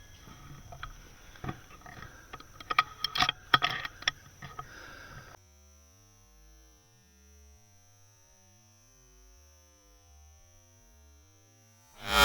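A string of light, irregular clicks and knocks for about five seconds, then silence.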